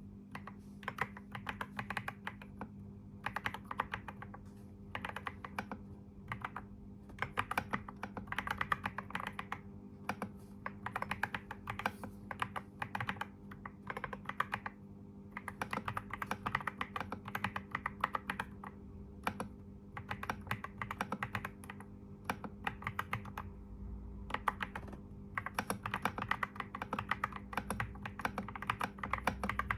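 Typing on a computer keyboard: quick runs of key clicks lasting a few seconds each, broken by brief pauses.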